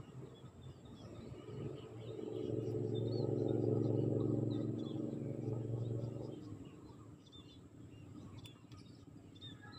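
Engine of a passing motor vehicle, swelling to a peak and fading away over about five seconds, with small birds chirping.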